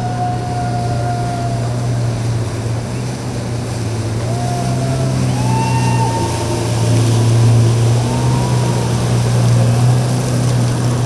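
Motorboat engines running with a steady low drone under a wash of water and wind noise, growing a little louder through the middle. A few drawn-out high calls glide over it.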